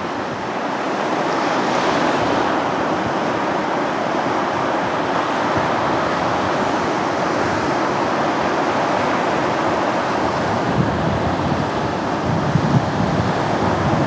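Surf of a stormy sea breaking on a sandy beach: a steady rush of waves, with wind buffeting the microphone in the last few seconds.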